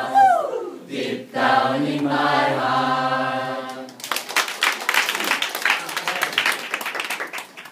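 A group of adults singing together in unison, ending on a long held note; about four seconds in the singing stops and they break into hand-clapping applause.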